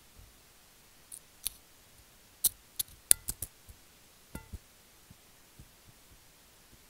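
A series of sharp clicks and taps against a glass plate as kinetic sand is pressed and pulled apart by hand, about a dozen, thickest in the middle, two of them leaving a brief glassy ring; a few faint ticks follow.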